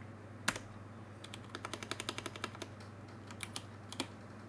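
Computer keyboard typing: scattered key clicks, with one louder click about half a second in and a quick run of keystrokes after about a second.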